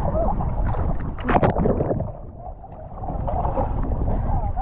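Water splashing and sloshing close to the microphone as swimmers drift in a current, with wind noise on the microphone; a louder splash about a second and a half in.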